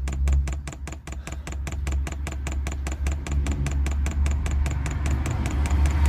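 Diesel heater fuel pump clicking rapidly and evenly, about eight clicks a second, as it primes the fuel line and pushes fuel and air bubbles through. Under it runs a steady low hum.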